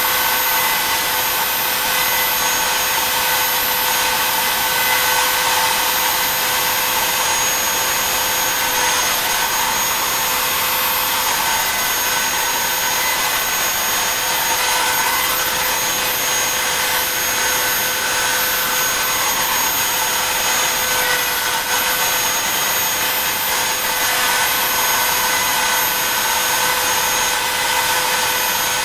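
BobsCNC E3 desktop CNC router's spindle running at speed, a steady high-pitched whine with a rough hiss, as the end mill carves small stars into a wooden board.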